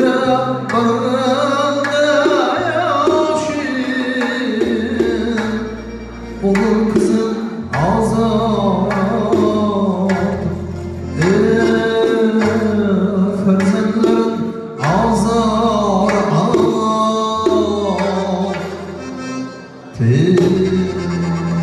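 Live Uzbek wedding music: a man singing a wavering melody into a microphone, backed by a long-necked lute and an electronic keyboard playing held bass notes under a steady percussion beat.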